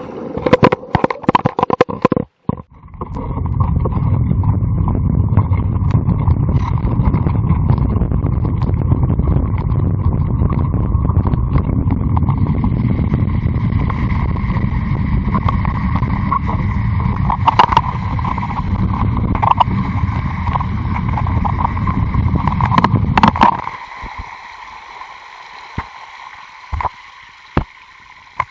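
Mountain bike ridden along a wet, rough lane: a loud, steady low rumble from the ride, after a few sharp knocks in the first couple of seconds. Near the end the rumble cuts off suddenly and gives way to a quieter hiss of the front tyre splashing through shallow flood water, with a few clicks.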